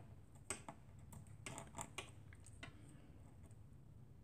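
Faint, irregular light clicks and taps as a pointed craft tool picks adhesive half-pearls off their plastic sticker sheet on a cutting mat.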